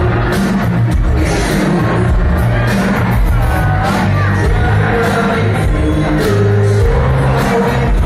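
Live pop-rock band playing: drums, keyboards and a male lead vocal, heard from among the arena audience.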